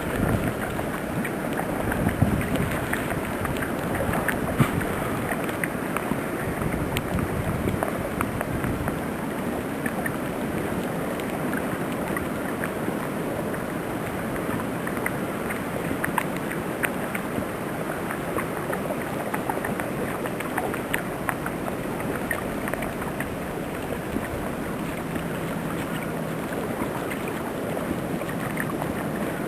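Snowstorm wind blowing steadily as a rushing noise with scattered small crackles, with heavier low buffeting on the microphone in the first several seconds.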